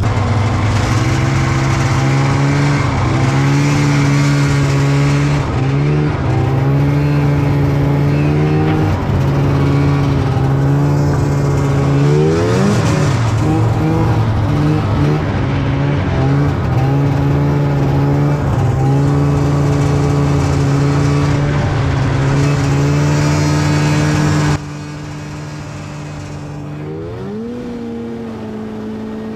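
Snowmobile engine running at a steady speed while riding, with its pitch dipping and climbing back up about halfway through. Near the end the sound cuts abruptly to a quieter engine note that then revs up.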